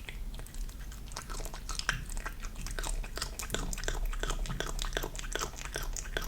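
Kitten chewing raw chicken hearts: a quick, irregular run of small bites and mouth clicks.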